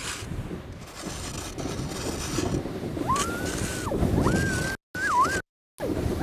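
Plastic kayak hull sliding down a packed snow hill: a steady rough scraping hiss. About three seconds in, a high wavering tone that glides up and down comes in over it, and the sound cuts out twice near the end.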